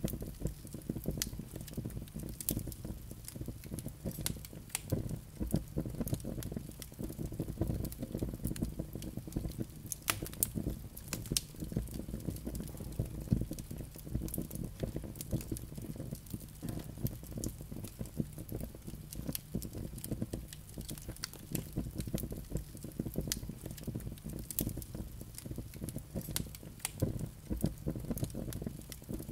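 Wood logs burning in a fireplace, crackling and popping many times a second over a steady low sound of the flames.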